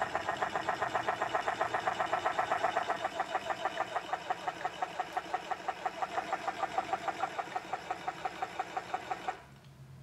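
Chatter Duck remote-controlled duck decoys making their mechanical chattering sound on the Button 2 setting: a rapid, even rattle of clicks with a buzzing tone, stopping abruptly about nine seconds in.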